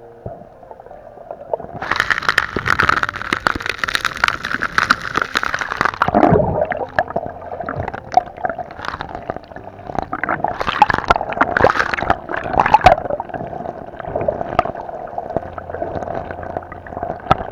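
Sea water gurgling and sloshing around the camera in rough water, with a loud stretch of splashing from about two seconds in to about six seconds, then irregular splashes and bubbling.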